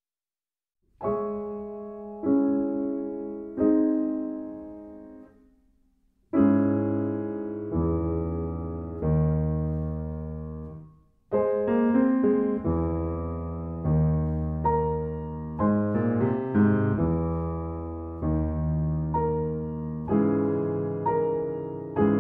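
Steinway grand piano played solo: after a second of silence, three chords struck about a second apart ring out and fade, then after a short pause a longer phrase of sustained chords, a brief break about eleven seconds in, and a steady run of repeated chords.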